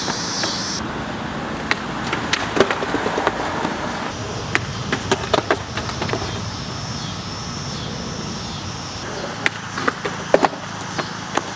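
Skateboard on concrete: wheels rolling, the tail snapping as the board is popped, and sharp clatters of the board hitting the ground when the rider bails, over several attempts at a trick. Traffic hum runs steadily behind.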